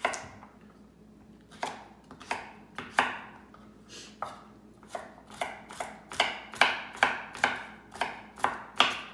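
Chef's knife chopping carrots on a wooden cutting board. A few scattered cuts at first, then a steady run of about two to three chops a second in the second half.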